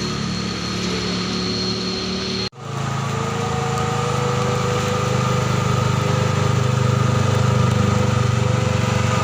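Truck engine running steadily, with a sudden break about two and a half seconds in. After the break the engine comes back a little louder and holds.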